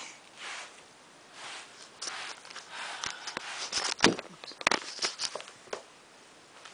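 Soft rustling and scratching with a run of sharp clicks and knocks, the loudest about four seconds in. It comes from a cat rolling and pawing on a rug and from the handheld camera being knocked about.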